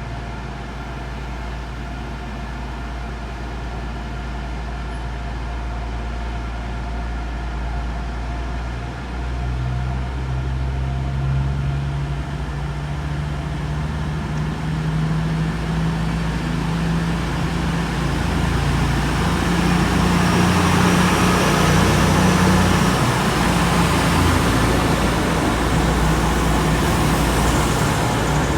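East Midlands Railway Class 222 Meridian diesel multiple unit arriving, its underfloor diesel engines growing steadily louder as it draws in along the platform.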